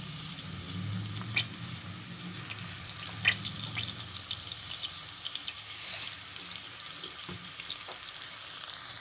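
Sliced onions frying in oil in a stainless steel saucepan: a steady sizzle with a few sharp pops and a low hum under it in the first few seconds.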